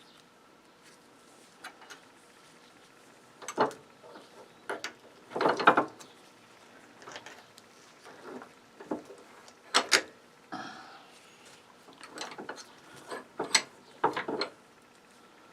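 Small metal and plastic parts of a circuit breaker clicking and clattering as it is pulled apart by hand, about ten separate knocks spread out, the loudest about six seconds in.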